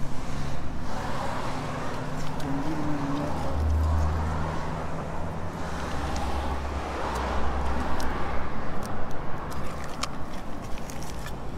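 Road traffic: a steady low engine hum with noise that swells and fades a few times as cars pass, and scattered light clicks.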